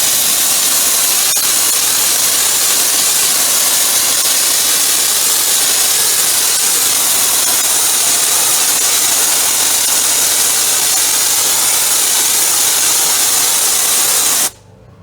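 ST555 wet sandblaster on a 200-bar pressure washer blasting a jet of water and sand at a wall: a loud, steady hiss that cuts off suddenly near the end as the trigger is let go.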